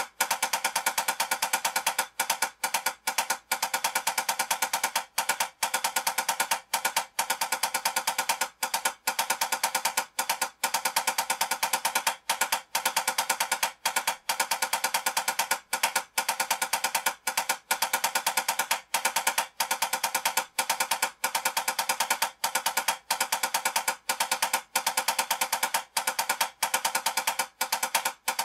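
Two wooden drumsticks playing fast, even sixteenth-note strokes on a drum practice pad, a steady stream of taps broken by short gaps: a 16th-note timing exercise played over a check pattern.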